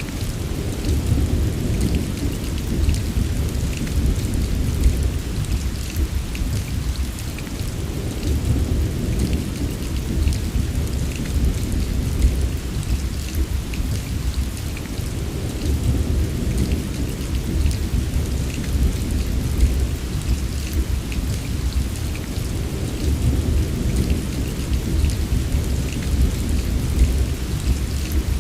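Steady heavy rain, with fine drop patter up high and a deep low rumble of distant thunder underneath that swells and ebbs every few seconds.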